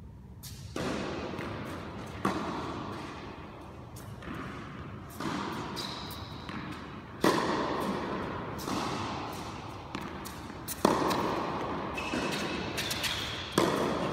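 Tennis ball being hit and bouncing on an indoor hard court, a sharp pop every second or so, each one echoing through the large hall. A couple of brief high squeaks come in between.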